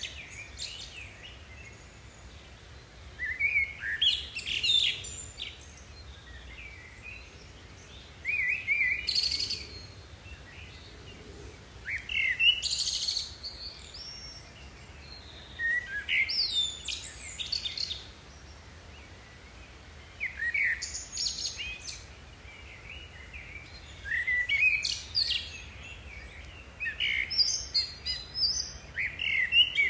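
A songbird singing short, varied phrases of chirping notes, one phrase about every four seconds.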